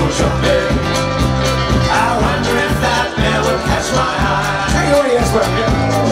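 Live folk-rock band playing: accordion, guitars and bass over a steady drum-kit beat, heard through the room of a small venue.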